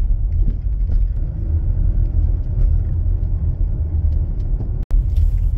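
Steady low rumble of a car driving, heard from inside the cabin: road and engine noise. The sound cuts out for an instant near the end.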